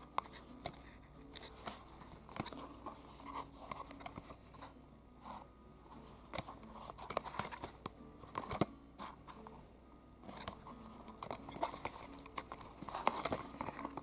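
Cardboard toy-car box with a clear plastic window handled and turned in the hands: scattered light taps, clicks and short rustles of fingers on the card and plastic, busiest near the end.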